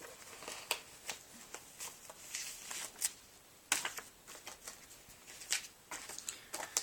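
Paper pages of a Filofax organizer rustling and its cover tapping as it is handled, in irregular short rustles with a sharper one a little past halfway.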